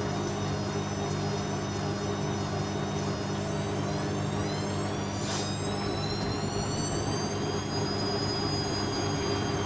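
Vestel-built Panasonic front-loading washing machine spinning its drum of wet laundry up to speed: the motor's high whine climbs in pitch and then holds steady over a constant low hum.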